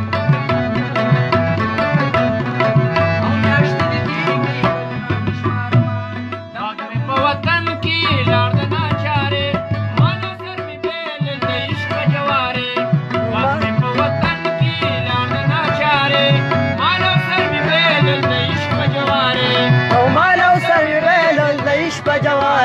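Pashto rabab playing a fast run of plucked notes, over a steady held harmonium drone and hand-drum accompaniment.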